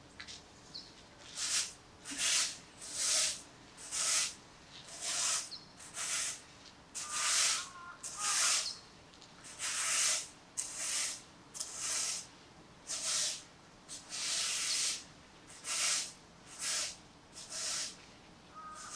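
Broom sweeping: a regular run of swishing strokes, a little over one a second, starting about a second and a half in and stopping near the end. Faint bird chirps sit behind it.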